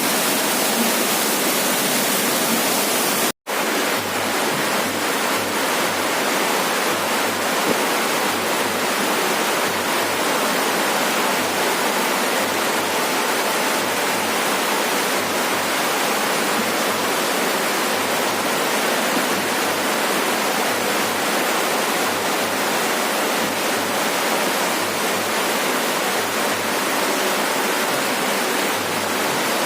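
Heavy rain falling steadily on a roof, an even hiss. It is broken once, about three and a half seconds in, by a split-second dropout to silence.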